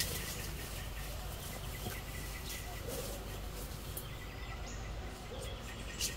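Rustling and crackling of dry leaves and brush as a person pushes through forest undergrowth, with scattered snaps and a sharper crackle near the end.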